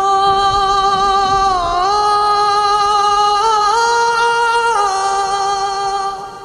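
A singer in a Hindi song mashup holds one long note over music. The note steps up in pitch about three and a half seconds in, drops back just before five seconds, and fades out near the end.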